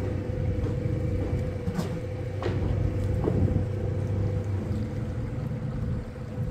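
A boat's motor running at a steady speed, a constant drone under the ride across the water.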